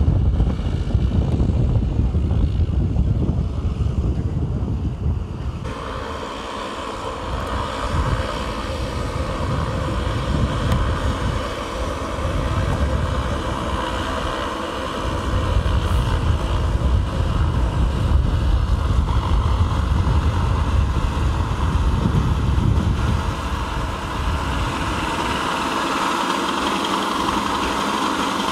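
Vintage biplane's propeller engine running steadily as the plane flies low over the airfield, with wind rumbling on the microphone. The wind rumble is strongest in the first few seconds; the engine comes up clearer about six seconds in and grows louder near the end.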